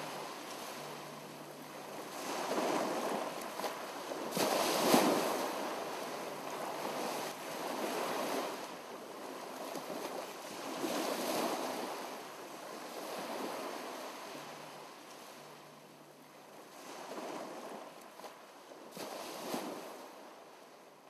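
Sea waves washing in and out, the rush swelling and fading about every two to three seconds, with one sharper surge about five seconds in.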